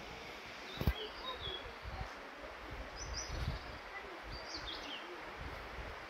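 Outdoor woodland ambience: small birds give a few short, high chirps over a steady hiss, with irregular low thumps and a single sharp click about a second in.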